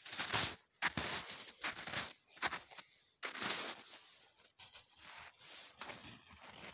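Footsteps crunching in crusty snow: a run of separate crunches in the first few seconds, then softer, more run-together crunching.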